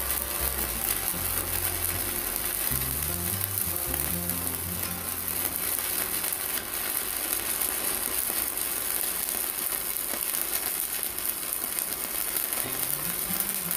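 Steady crackling and sizzling of a stick-welding arc as a 4.0 mm electrode burns, powered by a mini IGBT inverter welder. Background music with a stepping bass line plays under it.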